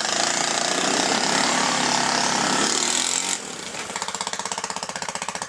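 ATV engine revved hard for about three seconds while stuck in mud, then dropping back to a rapid, even putter.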